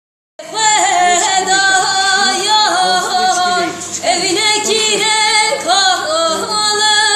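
A girl singing in a high voice, holding long notes that bend and waver in ornamented runs, starting about half a second in.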